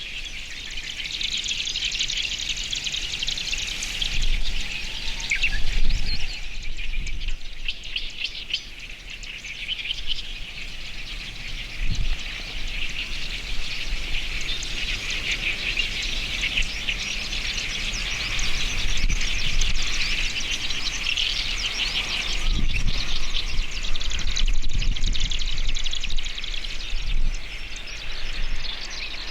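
Chorus of marsh songbirds, the marsh grassbird among them, singing over one another in dense, continuous chirping, with a few short low thumps.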